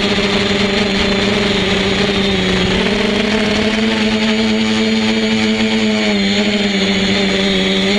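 Quadcopter's electric motors and propellers whirring steadily, heard from a camera mounted on the craft. The pitch steps up a little about three seconds in and dips briefly near six seconds as the throttle changes.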